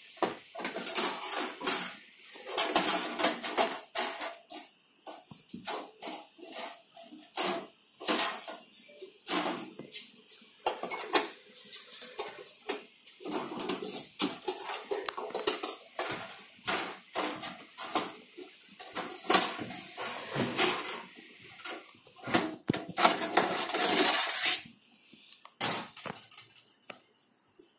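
Repeated metal clinking, scraping and rattling as the wire-mesh rotisserie basket of a Kalite Q10 air fryer oven is handled on its spit, with irregular sharp clicks and brief ringing.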